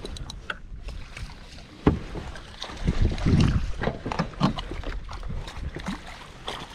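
Fishing gear being handled in a kayak: scattered knocks and clicks from the rod, reel and landing net against the hull, with one sharper knock about two seconds in, over a low rumble.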